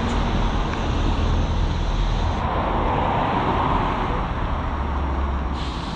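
Road traffic on the adjacent road: a steady rush of tyre and engine noise that swells about halfway through as a vehicle goes by.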